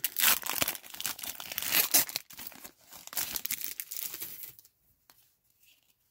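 Foil wrapper of a Panini XR football trading-card pack being torn open and crinkled, an irregular crackling that stops about four and a half seconds in.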